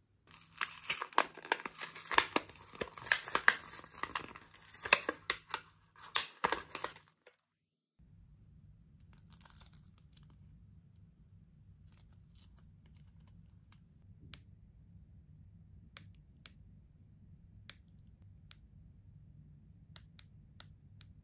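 Plastic blister packaging being torn and crinkled open for about seven seconds, the loudest part. After a break, light scattered clicks from the small keychain LED flashlight being handled and its push button pressed.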